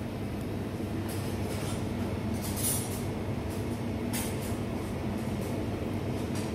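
Steady low mechanical hum, with a few soft rustles as the cut halves of a bread loaf are handled on a metal tray.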